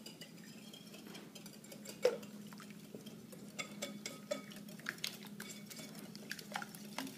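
Wire whisk beating crepe batter in a glass mixing bowl, the wires clicking and ticking irregularly against the glass, with one louder knock about two seconds in.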